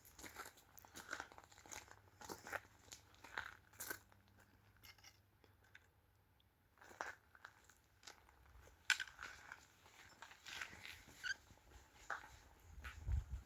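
Footsteps crunching on the trail surface at a walking pace, about two steps a second, stopping for a couple of seconds midway and then resuming. A brief low rumble comes near the end.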